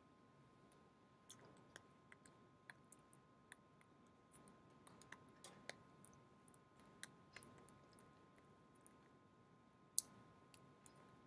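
Near silence: faint room tone with a steady thin hum, dotted with scattered faint irregular clicks, and one sharper click near the end.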